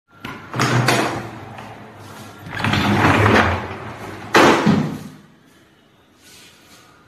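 Sliding wardrobe doors rolling along their track three times, the last starting with a sharp knock.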